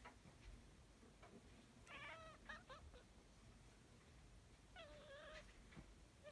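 A Siamese cat meowing faintly twice: a drawn-out call about two seconds in with a short extra note after it, and another held call about five seconds in.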